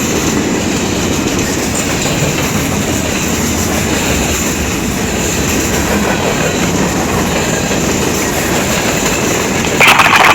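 CSX freight train's cars rolling past on the rails: steady wheel-on-rail noise. Near the end a sudden loud burst of radio noise begins.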